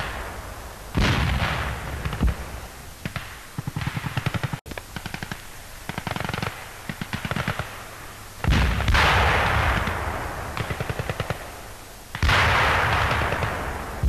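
Battle sound: bursts of rapid machine-gun fire, broken by three heavy blasts whose rumble dies away over a second or more, about a second in, past the middle, and near the end.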